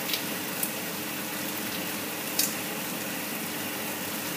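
Onion-tomato masala sizzling steadily in oil in a pot, with three light clicks of a spoon as spices are spooned in.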